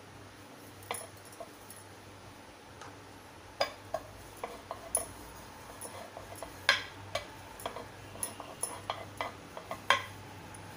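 Rolling pin clicking and knocking against a round metal rolling board as a thin puri of dough is rolled out. The knocks come irregularly, a few at first, then many from about three and a half seconds in.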